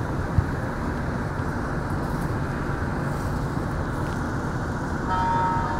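Steady low rumble and hiss of an MR-73 metro train standing at a station platform, with one sharp click about half a second in. A few steady tones begin near the end.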